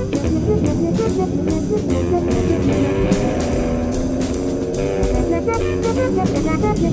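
Live band playing jazz-inflected music: a drum kit keeping a steady beat with cymbal hits, under guitar and a horn line.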